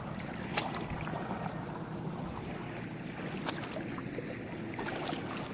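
Steady rush of river water mixed with wind on the microphone, with two sharp clicks, one about half a second in and one about three and a half seconds in.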